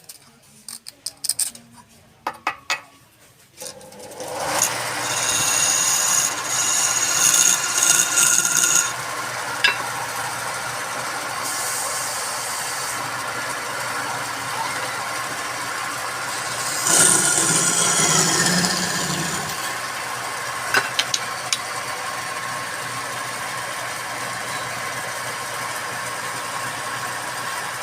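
Wood lathe running, with a tool or abrasive rubbing on the spinning wood; a few light clicks first, then the steady running noise sets in about four seconds in and continues with small surges.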